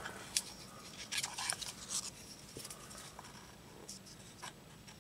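Light handling noise as a plastic Milescraft laminate trimmer and a veneered wood block are turned over in the hands, with a scattering of soft clicks and taps.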